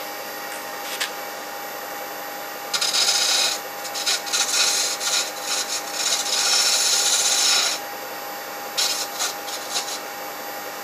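Turning chisel scraping the face of a yoyo half spinning on a Record Power wood lathe. It comes in rough, rasping passes from about three seconds in to about eight, then again briefly near the end, over the steady hum of the lathe. The cuts are flattening a slightly convex face.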